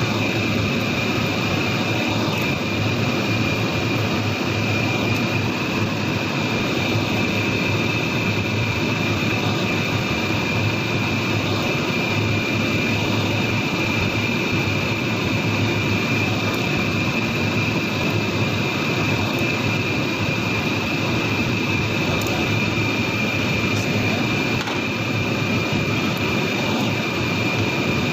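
Steady, even roar of a kitchen exhaust fan running over the gas stove, with a faint high whine held throughout and a few faint clicks.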